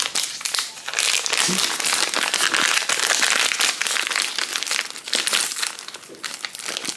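Clear plastic zip-top bag crinkling as hands handle it and pull it open.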